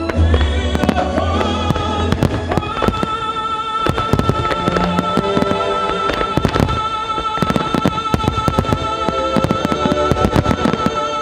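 Aerial firework shells bursting in rapid succession, a dense run of sharp bangs and crackles, over loud music with long held notes.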